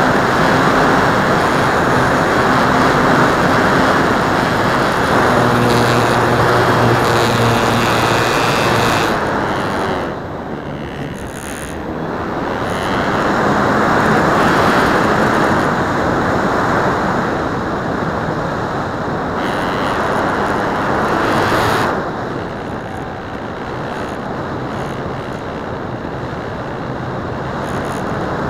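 Airflow rushing over the microphone of a camera carried on a Phoenix 2000 RC electric motor glider flying in strong wind, with a low steady hum from the electric motor and propeller in the first nine seconds or so. The rushing eases about ten seconds in, swells again, and drops back from about twenty-two seconds in.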